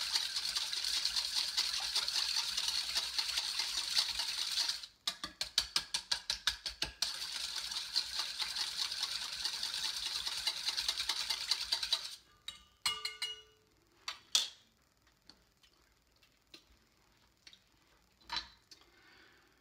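Wire whisk beating a thin vinegar-and-oil dressing in a stainless steel bowl, a fast rattling of wires against the metal. About five seconds in it slows to a couple of seconds of separate strokes, then speeds up again and stops about twelve seconds in. A few light clinks and a knock follow.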